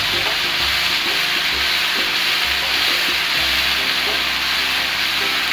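Tomato, ginger and green chili paste sizzling in hot mustard oil in a frying pan, with a steady frying hiss, as a wooden spatula stirs it; the paste is being fried until its raw tomato taste cooks off.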